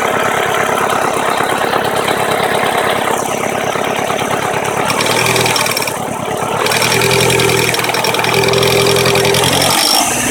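Turbocharged 1.8T four-cylinder engine running, with a fast, even knocking that the owner puts down to the hydraulic timing-belt tensioner. About halfway through, a steadier humming tone comes up over the knock.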